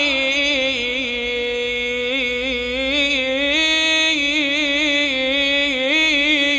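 A man chanting an Arabic supplication, drawing out the word 'Ilahi' into one long melodic line with small ornamental turns and no break for breath.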